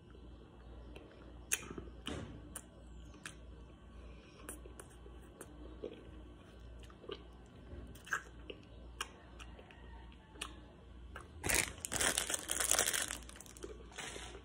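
Close-up mouth sounds of a person eating a Magnum ice cream bar: chewing and lip smacks with scattered sharp clicks. Near the end comes a louder scraping, rustling noise lasting about two seconds.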